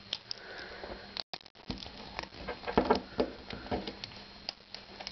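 Small plastic toy parts handled and fitted together: irregular clicks and rustling as a WALL-E figure's tread unit is worked onto its body, with a brief dropout about a second in.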